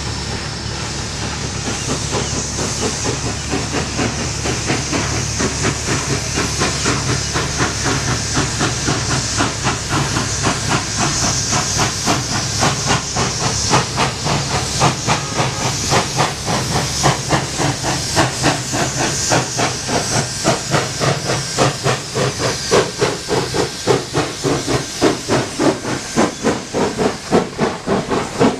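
Pennsylvania Railroad 643, an 0-6-0 steam locomotive, working a train: a rapid, even run of exhaust chuffs over a steady steam hiss. The chuffs grow louder and sharper as it approaches and passes close by near the end.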